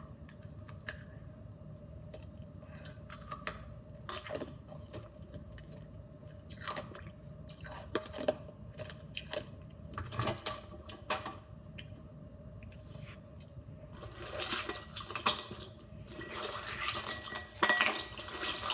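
Ice and meltwater being handled in a bowl: scattered clinks and knocks, then a few seconds of denser watery sloshing and crunching near the end.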